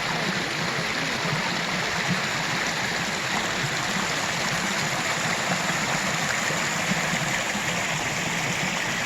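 Mountain stream running steadily over rocks, a constant rushing and splashing of water.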